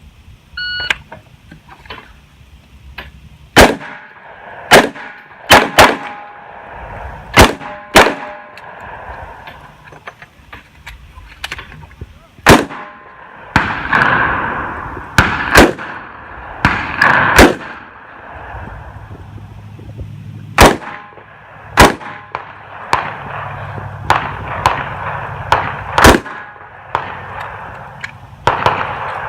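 A shot timer's short electronic beep gives the start signal, followed by a course of fire from an S&W Model 66-8 revolver: sharp gunshots in several quick strings separated by pauses.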